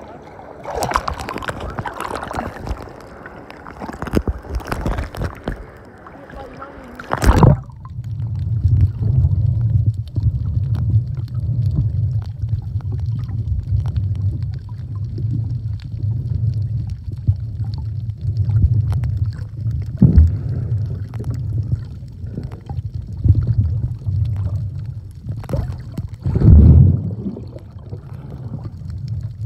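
Water splashing around a camera at the sea surface, then a sudden splash about seven seconds in as it goes under. After that, the steady low rumble of water heard through a submerged camera, with a couple of louder thumps or bubble bursts.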